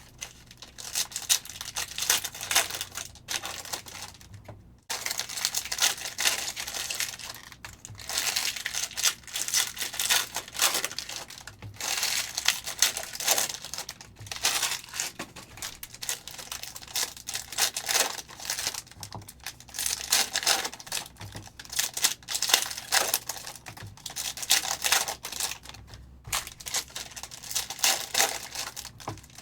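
Plastic wrapping on sealed trading-card boxes and packs crinkling and tearing as it is ripped open and handled, a near-continuous run of crackles with a short pause about five seconds in.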